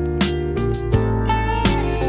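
Instrumental background music with guitar over a steady beat.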